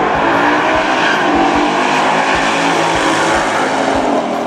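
Dodge Challenger Drag Pak race car's engine at full throttle on a drag-strip run, a loud, steady, rasping drone that begins to fade at the very end.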